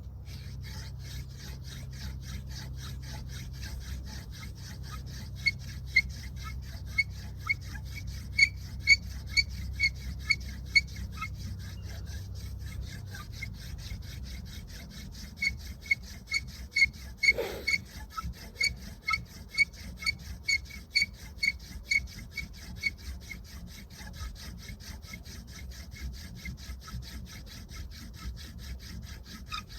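Friction-fire hand drill: a wooden spindle spun back and forth between the palms on a wooden hearth board. It gives a steady rubbing with a squeak about twice a second, loudest in two spells in the middle.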